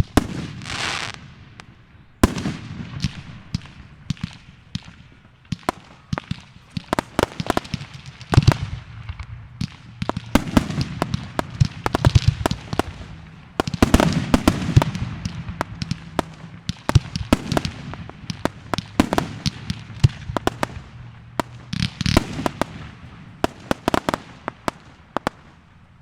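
Fireworks display: a long barrage of aerial shells bursting, dense sharp bangs mixed with crackling, starting about two seconds in and running almost to the end.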